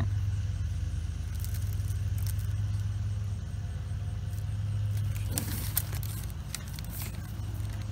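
A vehicle engine idling with a steady low hum. Over it come scattered crinkles and rustles of plastic-wrapped packs being handled, thickest about five to six seconds in.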